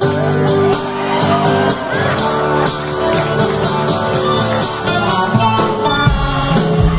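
Live band playing amplified country-rock music with strummed acoustic guitars, upright bass and a drum kit keeping a steady beat, with a voice singing over it.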